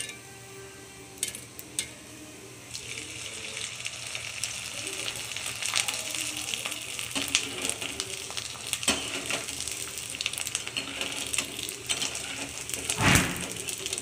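Homemade koozh vathal (rice-flour fryums) sizzling and crackling as they deep-fry in hot oil in a kadai. The sizzle starts about three seconds in, and there is one louder burst near the end.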